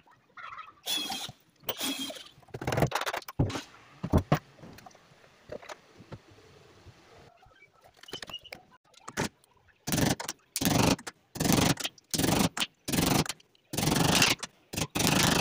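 Rhythmic scraping strokes of a hand tool, about two a second, starting about ten seconds in, after scattered short squeaks and knocks.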